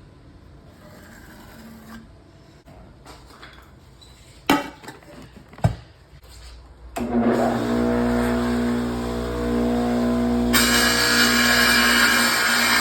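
Two sharp knocks, then an electric tile saw switches on about seven seconds in and runs with a steady motor whine. A few seconds later the blade cuts into the tile and a loud, bright grinding hiss joins it.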